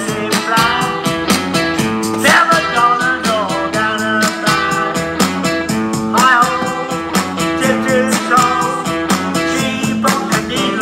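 Blues harmonica played into a cupped handheld microphone, with notes bent down in pitch every few seconds, over a blues backing with a steady beat.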